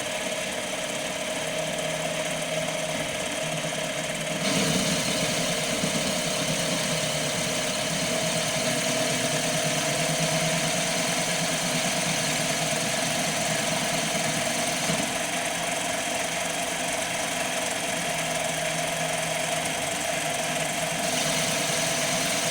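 CNC mini lathe turning aluminium with a carbide tool under program control: a steady motor and spindle whine with cutting noise, stepping up louder about four and a half seconds in.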